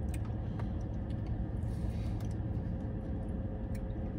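Steady low hum inside a car cabin, with a few faint clicks and small eating sounds from a plastic spoon and a shake cup.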